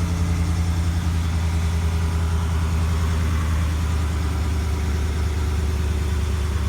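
2020 Ram 1500 pickup's engine idling steadily.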